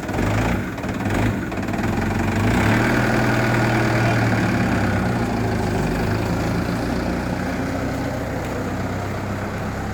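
Truck's diesel engine running steadily, growing a little louder about two seconds in and then slowly fading.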